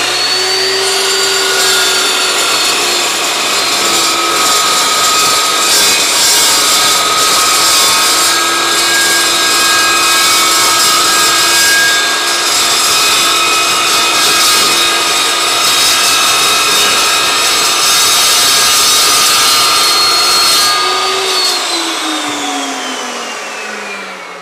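Evolution S380CPS 15-inch dry-cut chop saw with a carbide-tipped blade cutting through 1/4-inch-thick steel angle. The motor holds a steady whine under load over the harsh noise of the cut. About 21 seconds in, the blade breaks through, the motor briefly picks up speed, and then it winds down with a falling whine.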